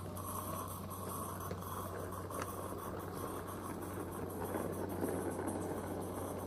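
Small-scale garden railway wagons rolling past on the track: a steady rumble of wheels on rail that grows louder about four to five seconds in as the brake van goes by close.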